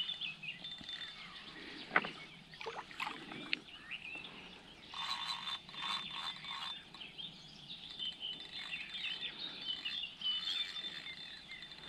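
Small birds chirping and twittering, with a sharp click about two seconds in and a brief cluster of clicks and rustles between about five and seven seconds.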